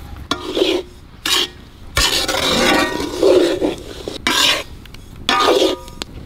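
Metal ladle scraping and stirring dry semolina in a large black iron kadai: a run of scraping strokes with a longer sweep in the middle, as the rava is dry-roasted.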